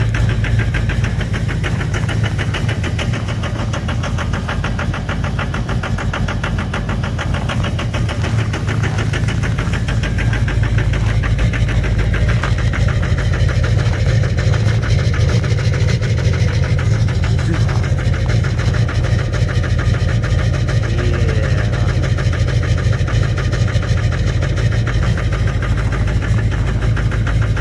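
LBZ Duramax 6.6-litre V8 turbodiesel idling rough soon after a −18°F cold start, with a steady diesel clatter. The owner puts the rough running down to worn injectors.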